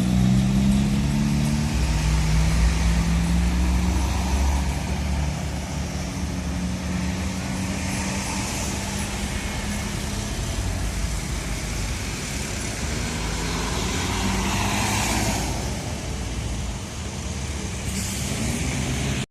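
Road traffic at a busy junction: a large vehicle's engine runs loud over the first few seconds, its pitch sliding down as it moves off, then steady traffic noise with another vehicle passing about three-quarters of the way through.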